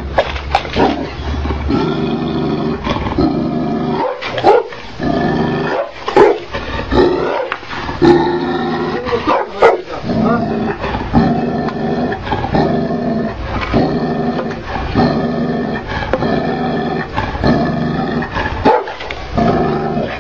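Tibetan mastiff growling steadily, breaking into several loud, deep barks, most of them in the middle of the stretch.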